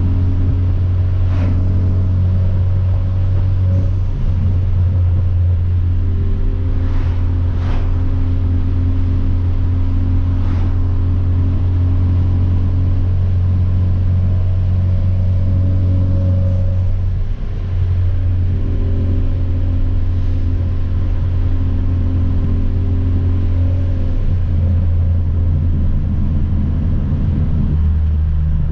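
Hyundai Veloster Turbo's turbocharged 1.6-litre four-cylinder, fitted with a catless downpipe, running steadily while cruising: a constant low engine drone that dips briefly about two-thirds of the way through.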